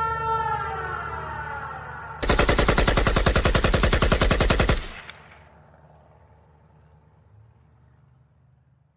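A siren winding down, its pitch sliding lower, then a loud burst of rapid machine-gun fire lasting about two and a half seconds, which dies away in a fading echo.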